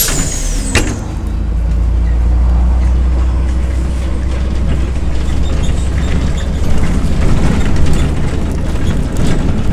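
MAZ-105 articulated city bus pulling away from a stop: a knock just under a second in, then the diesel engine's steady low rumble as the bus gets under way, heard from inside the passenger cabin.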